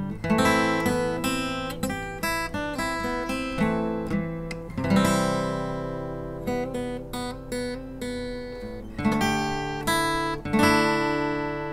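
Outro music: acoustic guitar played with picked notes and strummed chords.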